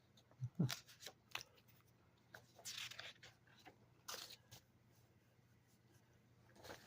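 Paper sheets rustling and crinkling as they are handled and leafed through, in short faint scattered bursts with pauses between.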